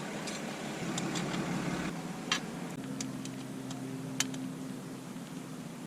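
Small metal clicks and taps of bolts, washers and locking nuts being handled and hand-threaded onto a bolted rack mount, irregular and light. A faint steady low hum joins partway through.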